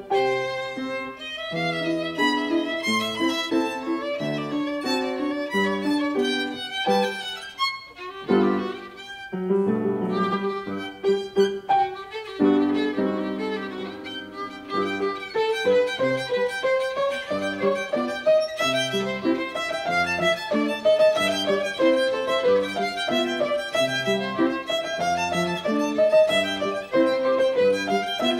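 A violin and a grand piano playing a classical duet.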